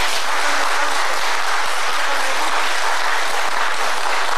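An audience applauding, dense and steady.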